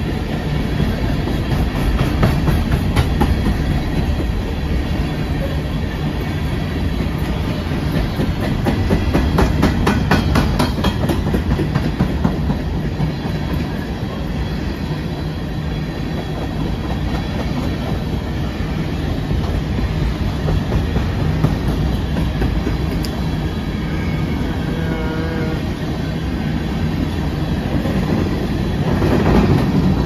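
Empty steel coal hopper cars of a freight train rolling past at speed: a steady rumble with the clickety-clack of wheels over rail joints, thickest a third of the way in. A brief faint squeal of wheels comes a little past the middle.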